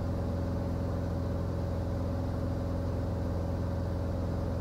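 Cockpit drone of a Cirrus SR20's four-cylinder piston engine and propeller in level cruise, a steady, unchanging hum.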